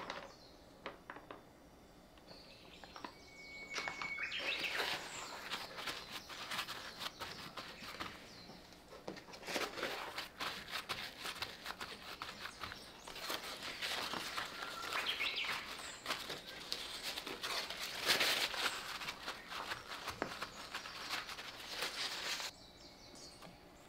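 Paper towels rustling and crinkling as hands press and pat soaked eggplant slices dry, in irregular bursts that stop suddenly near the end.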